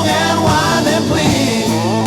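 Late-1960s-style psychedelic rock, an instrumental passage: a lead line bending up and down in pitch over sustained bass notes and chords.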